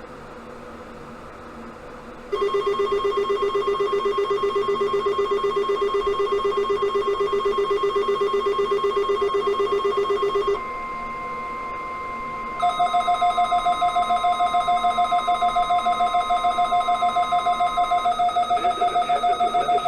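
Rapidly pulsing electronic alert beeps from weather radio receivers set off by a new warning. The steady NOAA Weather Radio 1050 Hz warning alarm tone comes in about ten seconds in and stops near the end. A second pulsing alarm at a different pitch joins a couple of seconds after the steady tone starts.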